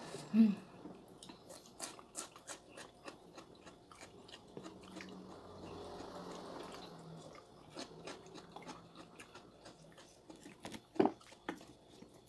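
Close-up crunchy chewing of raw vegetables, cucumber and mustard greens: a run of small crisp crunches, with a louder crunch about eleven seconds in.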